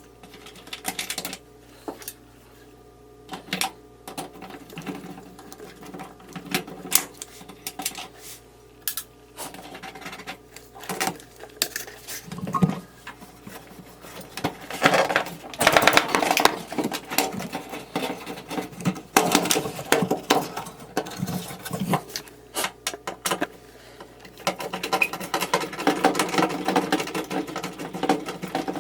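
Tools and metal parts clicking, knocking and rattling in irregular runs while a front-load washing machine is taken apart, with denser clattering about halfway through and again near the end.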